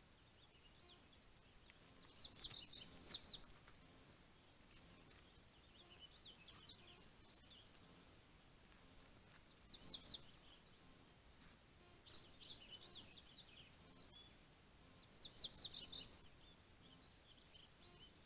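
A songbird singing faint, high, chirpy phrases that come back every two to three seconds, over a steady low hiss.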